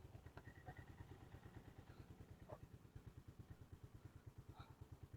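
Faint engine idling, a steady low pulsing of about eight beats a second.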